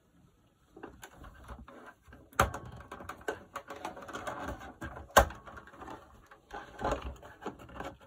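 The plastic cabinet of a Philips ARC33 radio cassette handled and turned over on a towel: scraping and rustling, with sharp plastic knocks about two and a half seconds in and again near the middle, as the unscrewed back case is worked loose.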